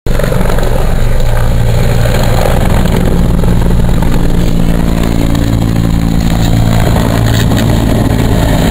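Helicopter flying close overhead, its rotor and engine running loud and steady.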